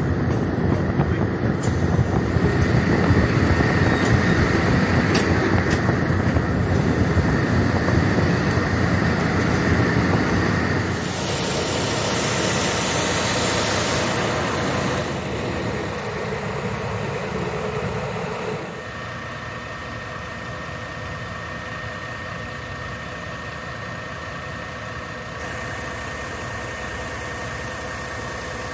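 Diesel-hydraulic locomotive running: at first heard from on board as it rolls through the yard, a loud rumble with wind, then from trackside, quieter, idling with a steady engine hum.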